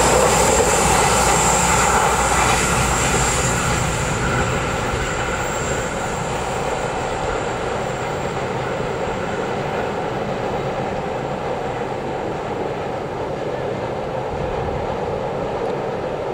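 Passenger train coaches rolling past on a curve: a steady rumble of wheels on rail that eases off over the first few seconds as the rear of the train moves away, then holds level.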